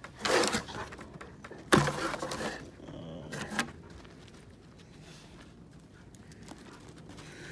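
A few rustles and knocks right at the microphone, the loudest a sharp knock a little under two seconds in, with a shorter one about three and a half seconds in.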